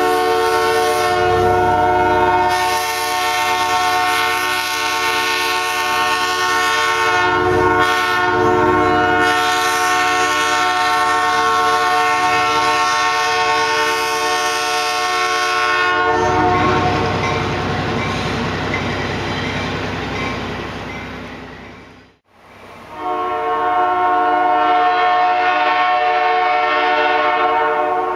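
Nathan AirChime J3 three-chime snowplow horn on a passing train, sounding a long held chord. About two-thirds of the way through, the chord stops and the rumble of the passing train fades away to silence. A second later the horn chord starts again abruptly and holds.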